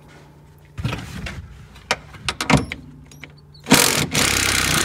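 Impact wrench hammering a rear strut's top mount nut loose on a Honda Civic: a loud burst of about a second and a half near the end. Before it come a few knocks of the tool and socket being handled.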